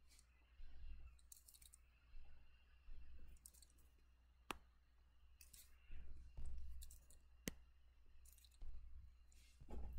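Faint, short scratchy strokes of a stylus on a drawing tablet, one after another, with two sharp clicks about three seconds apart over a low hum.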